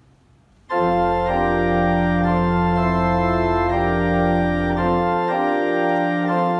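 Church organ starting the postlude about a second in: loud held chords that change every half second or so over a deep pedal bass, the bass dropping out near the end.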